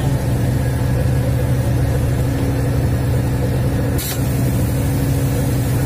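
Engine running steadily at constant speed, a continuous low drone, with one sharp click about four seconds in.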